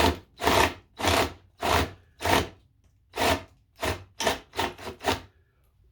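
Rhythmic scraping strokes against wood, about one every half second and closer together near the end. This is a recess being cut in the wooden frame for flat washers to sit in.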